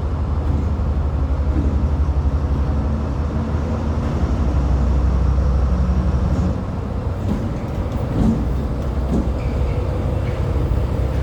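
A train's engine running with a deep, steady, pulsing rumble that eases off about six and a half seconds in, followed by a few light clicks.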